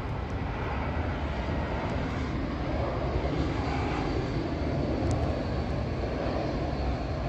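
Jet airliner engine noise: a steady rumble that swells slightly in the middle.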